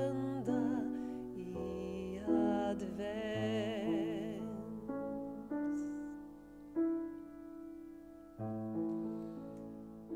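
Soprano voice singing held notes with a wide vibrato over grand piano accompaniment; from about five seconds in the voice drops out and the piano plays slow held chords alone, fading before a last chord near the end.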